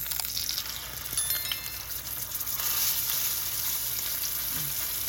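Ribeye steak sizzling in hot avocado oil in a cast-iron skillet as it is turned over with metal tongs, with a brief metallic clink about a second in. The frying grows louder about two and a half seconds in, as the raw side goes down into the oil.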